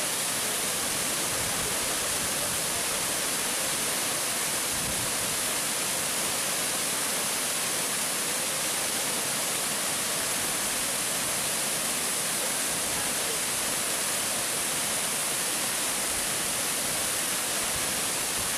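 Waterfall pouring down a rock face into a shallow, rocky pool: a steady, unbroken rush of water.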